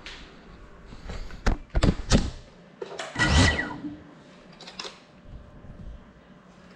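Handling noise on a small FPV drone's onboard GoPro, with its motors not running: three sharp knocks in quick succession as it is set down on a hard tabletop, then a short scraping rustle and a few light clicks.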